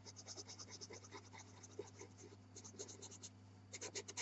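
Pastel pencil scratching in short strokes across velour pastel paper, faint at first, then louder and quicker near the end.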